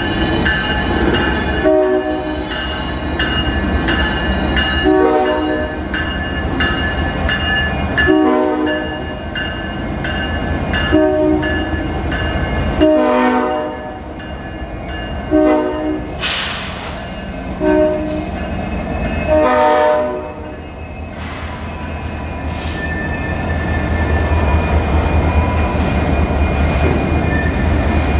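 A Union Pacific freight locomotive's air horn sounds about eight separate blasts over twenty seconds, the warning for a road grade crossing. The diesel and the rolling cars keep up a steady rumble beneath, which grows louder after the last blast as the train rolls through.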